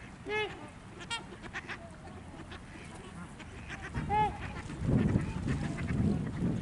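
Waterfowl calling: short honking calls, two in the first second or so and another about four seconds in. From about five seconds in, a louder low rumble of wind on the microphone covers them.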